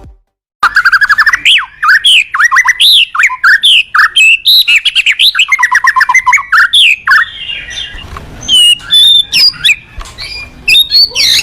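White-rumped shama (murai batu) singing a loud, continuous song of rapid repeated notes, sweeping whistles and trills. It starts about half a second in. Higher, more varied whistles come in over the second half.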